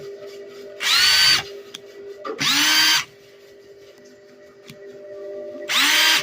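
Milwaukee drill motor spun up in three short trigger pulls, each about half a second long, the pitch climbing quickly to full speed before it stops. It is being test-run after its seized switch was cleaned and oiled.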